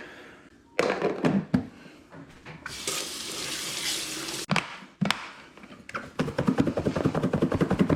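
Lidded container of fish in fish-fry breading being handled and shaken: a few knocks about a second in, a hissing rush in the middle, then fast rhythmic knocking, about eight a second, as the fish are thrown about inside to coat them.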